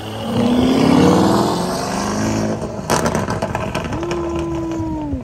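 Lamborghini Urus's twin-turbo V8 revving as the SUV pulls away, its pitch rising over the first two seconds. A sharp crack about three seconds in, then a steady tone that sinks and cuts off near the end.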